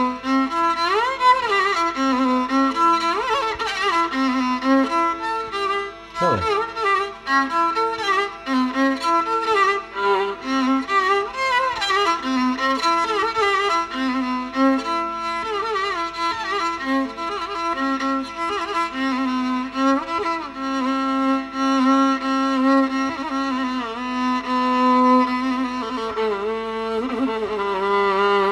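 Solo violin playing a Carnatic raga improvisation, its melody full of sliding, bending ornaments, over a steady drone.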